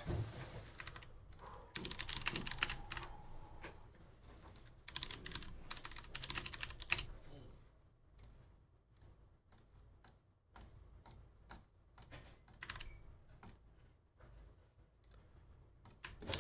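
Typing on a computer keyboard: quick, irregular runs of key clicks, thinning out in the second half.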